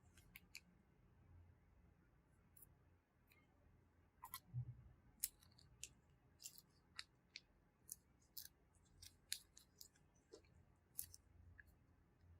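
Slime being squeezed and pressed, giving off irregular sharp, faint pops and clicks that come thickest in the middle and latter part.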